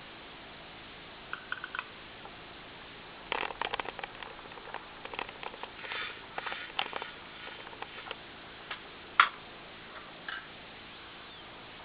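Small clicks, taps and light clattering as hard-drive parts and tools are handled during disassembly, busiest in the middle, with one sharp loud click about nine seconds in.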